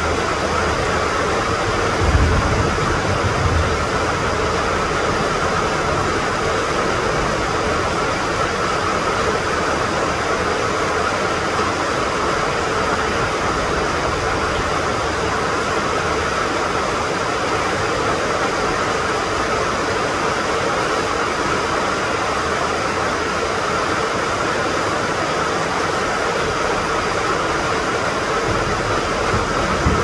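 Steady rain, a dense even hiss, with a brief low rumble about two seconds in.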